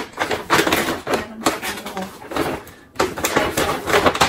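Paper and plastic gift wrapping rustling and crinkling as an item is pulled out of a gift bag, in two bursts about two seconds apart.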